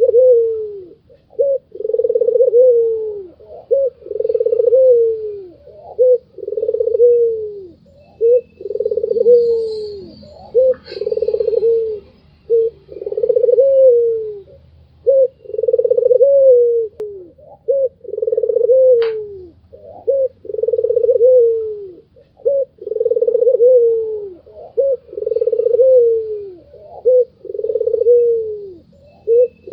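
White (albino) ringneck dove cooing over and over: a long rolling coo about every two seconds, each dropping in pitch at the end, with short notes between the coos.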